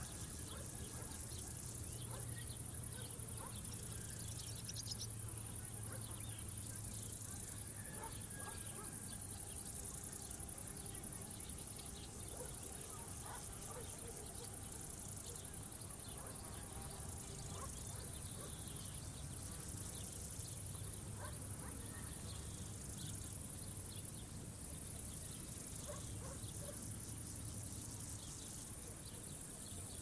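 Crickets chirring in a steady, high-pitched drone, with a faint low hum underneath.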